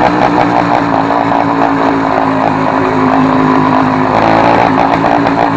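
Motorized bicycle's two-stroke kit engine running loud through a modified exhaust with the original tip removed. Its note sags slightly, then picks up again about four seconds in.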